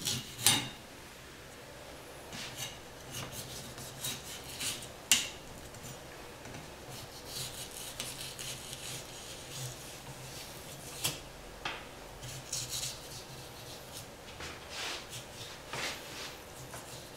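Ham-peeling knife scraping and cutting through the hard rind and fat of a cured Iberian ham leg, trimming it back to remove the rancid yellow fat. The sound is intermittent short rasping strokes with a few sharper knocks.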